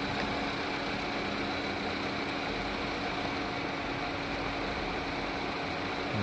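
Toyota Etios Liva's four-cylinder petrol engine idling steadily while it misfires on cylinders 3 and 4, a fault traced to bad spark plugs.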